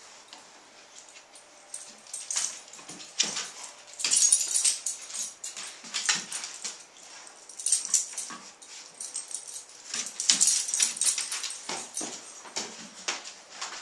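A small dog making short, repeated sounds close by, coming in irregular spurts every second or so.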